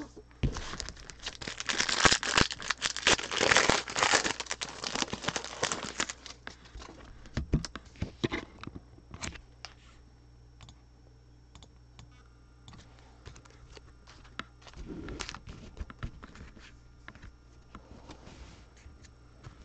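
Plastic wrapper of a trading-card pack being torn open and crinkled for several seconds, followed by scattered light clicks and rustles as the cards are handled.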